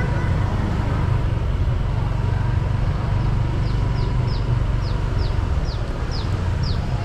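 Steady low rumble of a car driving along a city street: engine and road noise. From about halfway through, a run of short, high chirps, each falling in pitch, repeats about twice a second.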